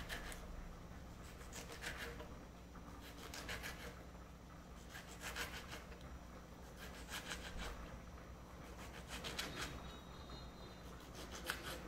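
Kitchen knife slicing a tomato on a plastic cutting board: a short burst of sawing strokes and taps against the board about every two seconds, one per slice.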